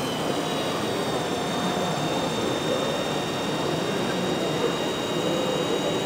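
Radio-controlled 1:8 scale construction models running, heard as a steady high-pitched motor whine over an even haze of background noise.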